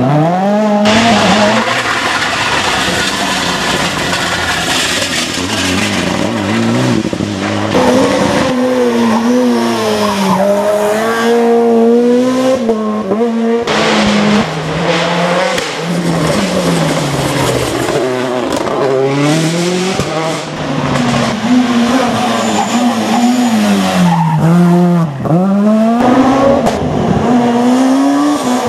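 Rally cars on a special stage, engines revving hard up through the gears and dropping back for corners, one run after another with abrupt cuts between them.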